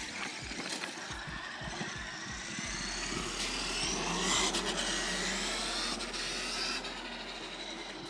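Traxxas E-Revo Brushless Edition RC monster truck driving: its electric motor gives a high whine that rises and falls over a few seconds. Stones click and crackle under its tyres at the start.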